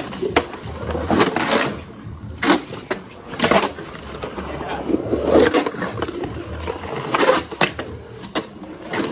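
Skateboard rolling over rough concrete, with sharp clacks of the board and trucks about every second.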